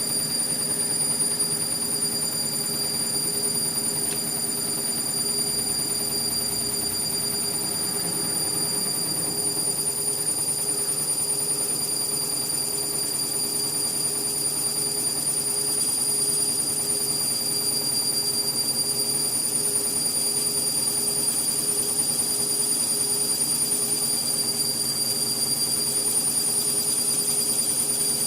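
Indesit MTWC71252WUK washing machine spinning its drum late in a Cotton 30 cycle: a steady motor whine with several high-pitched tones over a lower hum, getting slightly louder about halfway through.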